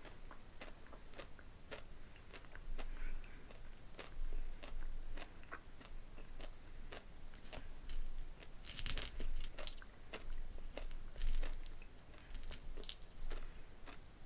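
Close-up chewing of a candy-shelled white chocolate pumpkin pie M&M: a run of short crisp crunches and clicks, with louder clusters about nine and eleven seconds in.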